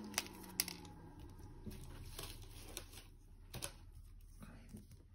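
Light clicks and taps of small tools and parts being handled during tablet disassembly, scattered irregularly, with a low falling hum fading out in the first second.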